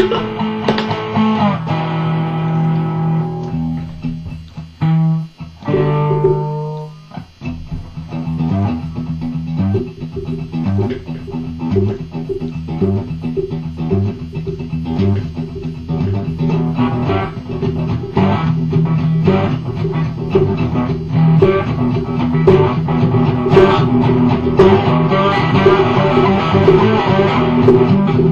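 Improvised cigar box guitar music with a log drum. After a few seconds of held notes and a short break, the guitar settles into a steady, repeating low riff, with regular sharp wooden strikes over it.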